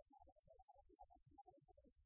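Faint, distant C61 steam locomotive working hard: an uneven low rumble with scattered exhaust sounds, and two short sharp high ticks about half a second and just over a second in.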